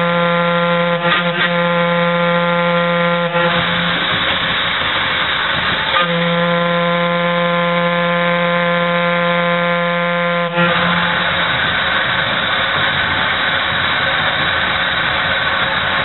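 Steam whistle on a steamboat's vertical boiler blowing two long steady blasts. The first stops about three and a half seconds in; the second sounds from about six to ten and a half seconds in. A steady rushing hiss runs under the whistle and between the blasts.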